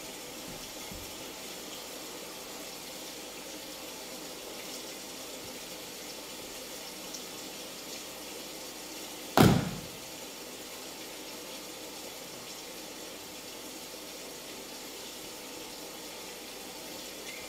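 Steady hiss of recorded rain. About nine seconds in, one sudden loud crack trails off into a low rumble.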